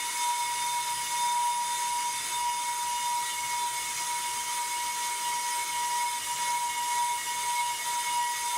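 Pro-Cut on-car brake lathe running through a cut on a brake rotor still mounted on the car: a steady high whine over a hiss from the motor and the bits skimming the rotor face.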